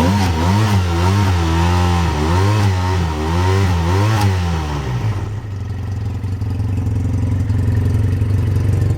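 Four-stroke engine of a 2012 Arctic Cat Bearcat Z1 XT snowmobile being revved up and down in a string of quick blips, then settling to a steady idle about five seconds in.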